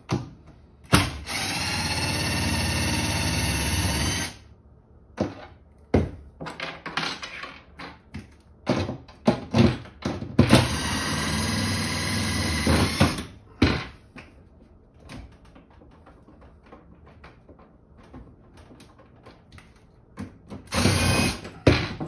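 Cordless drill backing out the two screws that hold an over-the-range microwave to the cabinet above it. It runs steadily for about three seconds twice, with a brief third run near the end and clicks and knocks of handling in between.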